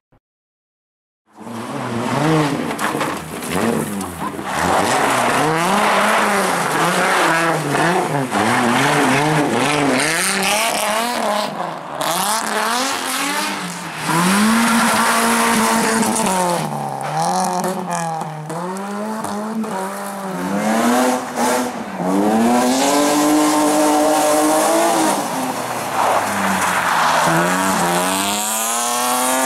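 Slalom race cars driven flat out, engines revving high and dropping again and again as they change gear, with tyres skidding on loose gravel. It begins after about a second and a half of silence.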